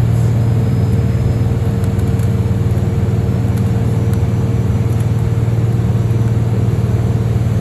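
A city transit bus cruising, heard from inside its cabin: a steady low engine drone with road noise. A thin steady whine runs over it.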